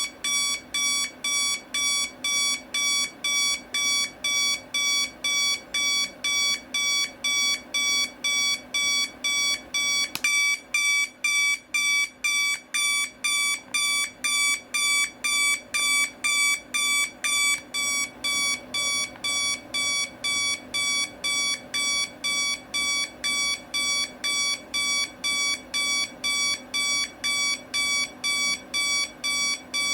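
Equity 30016 digital alarm clock's alarm beeping: a rapid, even train of short single-pitched beeps, about two and a half a second, a little louder from about ten seconds in.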